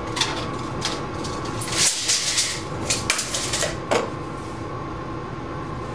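Small tools being handled on a wooden board: scattered light clicks and taps, with a short scraping rustle about two seconds in. A steady faint hum runs underneath.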